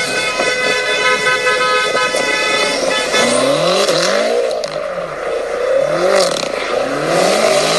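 A car horn sounds steadily for about three seconds. Then a car engine revs up and down over and over, in rising-and-falling sweeps about once a second, while the cars slide through a drift.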